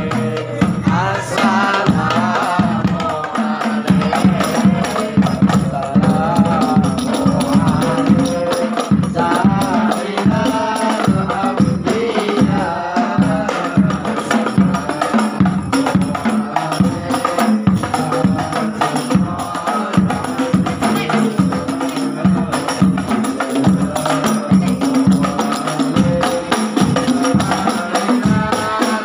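Rebana frame drums played in a dense, driving rhythm under voices singing a melody.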